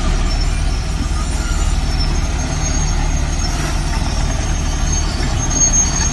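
Diesel engine of a three-axle dump truck running steadily at low speed as the truck creeps forward, with a thin high whine coming in about two seconds in.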